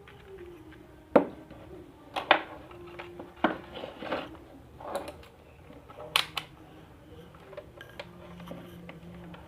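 Handling noise: about eight sharp, irregular clicks and knocks of hard objects being picked up and set down, the loudest about a second in.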